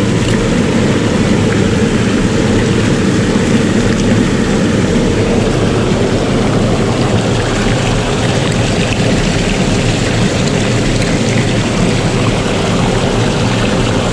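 Steady, loud rush of water surging and washing over shoreline rocks.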